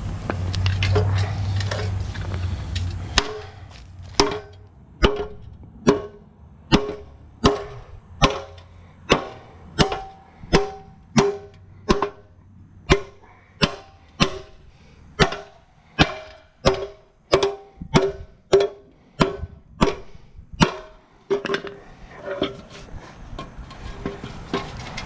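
Hammer blows on metal, roughly thirty strikes at a steady pace of a little under two a second, each ringing briefly, as bent metal on a Walker mower's blower fan assembly is hammered back into shape. A low hum comes before the strikes begin, about three seconds in, and the blows stop a few seconds before the end.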